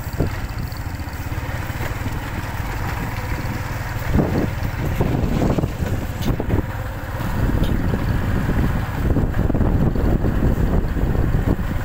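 Motorcycle running as it rides along a road, heard from on the bike, a steady low noise that gets louder a little past halfway.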